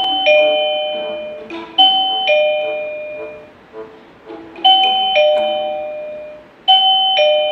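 Daytech DC012-2 wireless door chime ringing a two-note ding-dong, a higher note then a lower one, four times in a row. It is set off by the magnet being moved away from its door contact, the signal that a door has opened.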